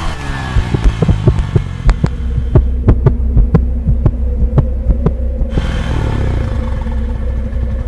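Dramatic heartbeat sound effect: a run of sharp beats over a steady low drone. The beats come quickly at first, then settle to about two a second. About six seconds in, a short sweeping engine-like pass cuts through.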